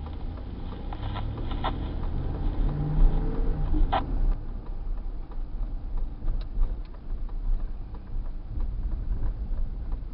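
A car driving on the road, heard from inside the cabin: a steady low rumble of engine and road noise, with a couple of brief clicks in the first four seconds.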